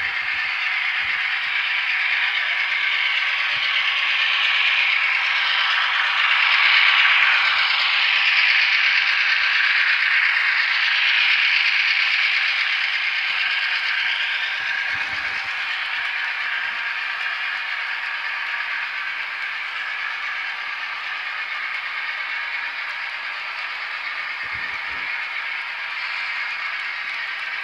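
HO scale model freight cars rolling past on model track: a steady metallic rattle and rush of small wheels on the rails. It swells louder after a few seconds and eases off again.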